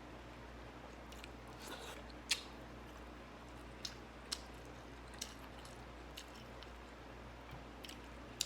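A person chewing food close to the microphone, with scattered short wet clicks and crunches, about one or two a second, over a faint low hum.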